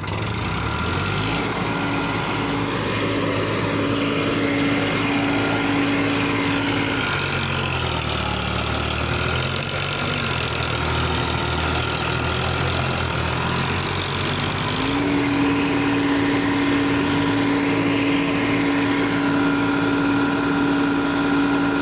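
Diesel engine of an Eicher 557 tractor running, bogged down in deep mud. Its steady note changes for several seconds in the middle, then comes back suddenly to the same steady pitch.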